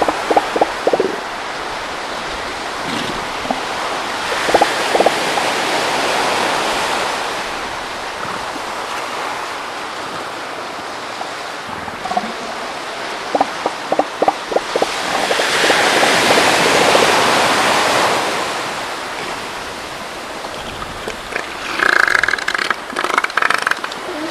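Surf washing ashore in slow swells, with several short bursts of rapid pulsed calls from northern elephant seals; the longest and loudest burst comes near the end.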